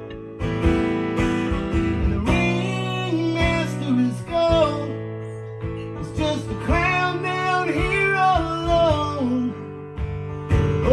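Acoustic guitar strummed in a steady rhythm, with a man singing long held notes over it.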